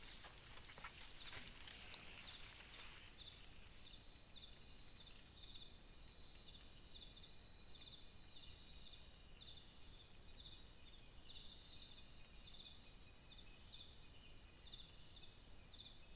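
Vegetation rustling and crackling for about the first three seconds as a forest elephant walks off through the undergrowth. After that comes a faint night chorus of insects: steady high trilling with a regular pulsing chirp.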